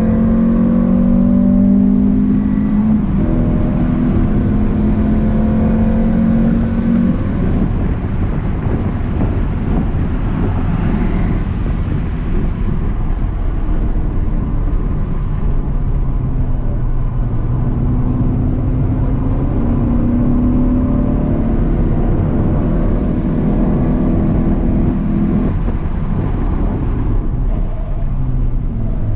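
Renault Clio 182's 2.0-litre four-cylinder engine running hard, heard inside the cabin over road and wind noise. The engine note holds steady, eases off about seven seconds in, and picks up again from about sixteen to twenty-five seconds.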